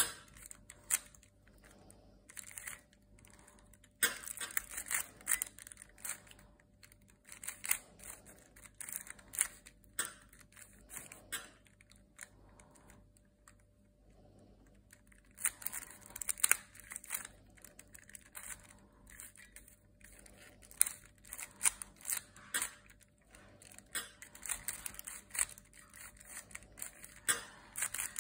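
Plastic twisty puzzle made of coloured balls being turned by hand: irregular runs of small plastic clicks and rattles as its layers are twisted, with a pause of a few seconds around the middle.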